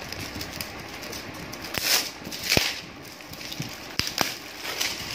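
Cardboard packaging being handled, with a few short rustling swishes and three sharp knocks against the box about halfway through and near the end.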